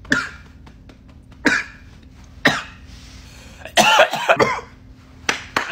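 A young man coughing hard after a big hit on a vape: about six coughs, a second or so apart, the longest and loudest a rasping, voiced cough about four seconds in.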